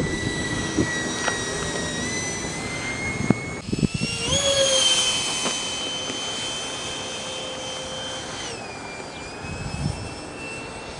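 Electric ducted fan of an Art-Tech Jetiger RC foam jet whining in flight. The high whine steps up in pitch about four seconds in, holds, then drops back lower near the end.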